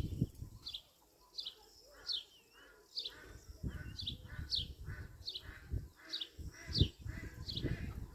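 A songbird repeating a short, high chirp that slides downward, about twice a second, over irregular low rumbles and bumps.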